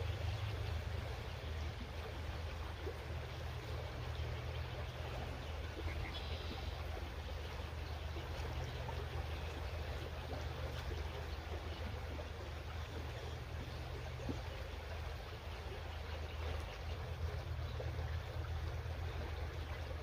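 Shallow creek trickling and burbling over rocks in a steady wash of water noise, with a steady low rumble underneath.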